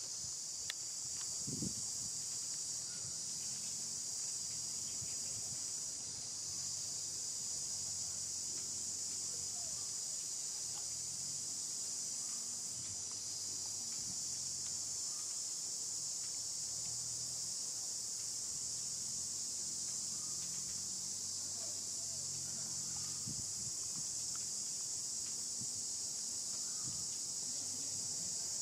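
Steady, high-pitched chorus of insects buzzing without a break, with a couple of soft knocks in the first two seconds.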